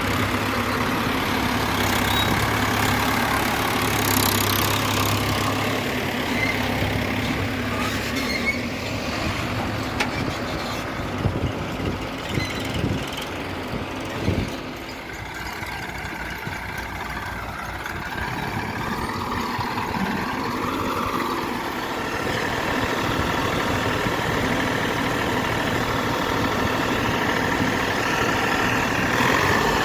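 Diesel engines of a backhoe loader and tractors running steadily, with a few sharp knocks about halfway through.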